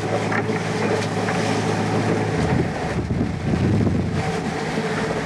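Sounds aboard a boat underway at sea: a steady low engine hum over wind and water noise. About two and a half seconds in it changes to gusty wind buffeting the microphone.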